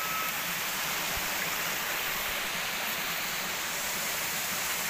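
Steady rushing hiss of forest background noise, like flowing water, even throughout.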